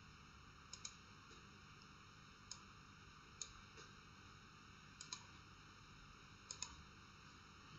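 Faint computer mouse clicks, a handful of them, several in quick pairs, over near-silent room tone.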